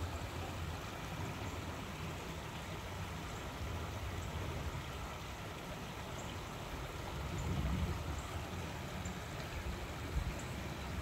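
Creek water running steadily over rocks, with a low rumble that swells briefly about three-quarters of the way through.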